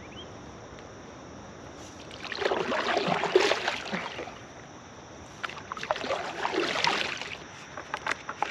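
Two paddle strokes through the water beside an aluminum canoe, each a swelling and fading swish, followed by a few light knocks near the end.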